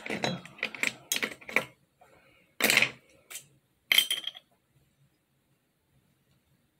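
Small hard objects clinking and clattering: a quick run of sharp taps over the first couple of seconds, then three more about half a second to a second apart, after which it stops.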